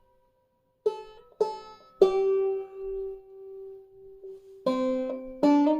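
Five-string banjo in eCGCD tuning played clawhammer style: a short run of single plucked notes after a moment of silence, one of them left ringing for about two seconds.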